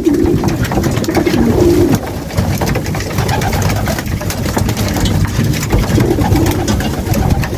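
A loft full of racing pigeons cooing, in low repeated calls that come and go, with wings flapping and fluttering as birds take off and settle.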